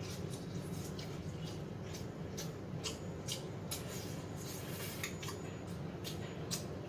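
Eating sounds: chewing on fried chicken and pickled radish, with irregular sharp clicks and taps of dishes and cutlery, over a steady low hum.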